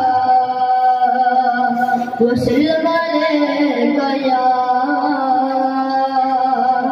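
A young male naat reciter singing a naat into a microphone, heard through the venue's sound system: long, held, melodic vocal lines, with a short break and a new phrase about two seconds in.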